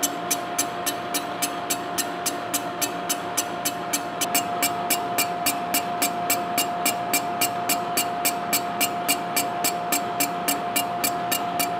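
Horizontal boring mill fly-cutting a cast-iron drill press table on a light five-thousandths pass. The single tool bit ticks sharply about four times a second as it strikes the iron on each turn, over a steady whine from the machine. The ticks and whine grow a little louder about four seconds in.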